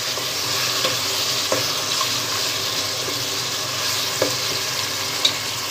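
Mutton pieces sizzling in hot oil with fried onions and ginger-garlic paste, stirred with a steel spoon. The spoon gives a few short scrapes and knocks against the pot.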